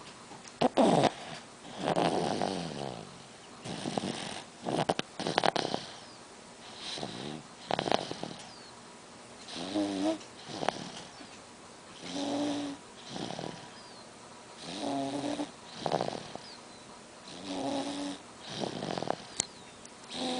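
Eight-month-old baby snoring, a rasping breath about every two to two and a half seconds, several of them with a buzzing, pitched rattle.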